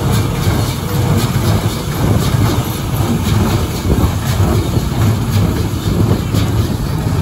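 Tractor-drawn small square baler at work, its pickup and baling mechanism running steadily over the low drone of the tractor driving it through the PTO shaft, with faint clacks repeating throughout.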